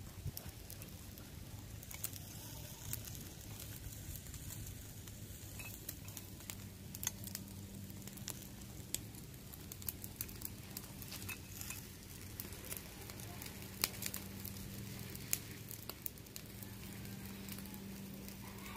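Chicken feet grilling on a wire rack over charcoal: a faint sizzle with scattered sharp pops and crackles from the fire and dripping marinade.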